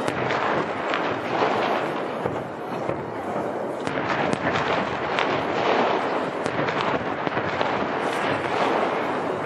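Fireworks going off in a dense, continuous barrage of overlapping bangs and crackles.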